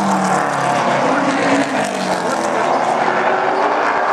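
Several super stock race cars running at full speed on an asphalt oval track, their engines loud and constant, with the pitch sliding up and down as the cars go through the turn and pass.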